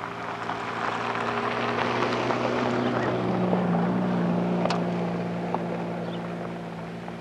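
An engine passes by, growing louder over the first few seconds and fading toward the end, its hum dropping in pitch about three seconds in.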